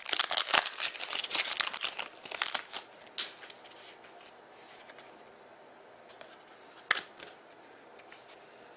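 A trading card pack's wrapper crinkling and tearing as it is opened by hand, busiest over the first three seconds, then quieter handling with one sharp click about seven seconds in.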